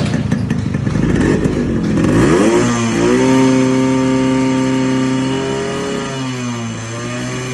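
Yamaha RX100's single-cylinder two-stroke engine running roughly at low revs. About two seconds in it is revved up, and it is held at steady high revs before easing back down near the end. It is being run to blow white smoke from its two-stroke oil.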